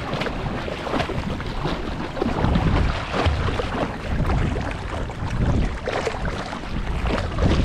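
Choppy sea water sloshing and splashing close to the microphone, with wind buffeting it in uneven gusts.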